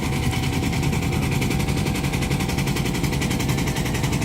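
Engine of a small train running steadily, with a rapid, even beat over a low hum.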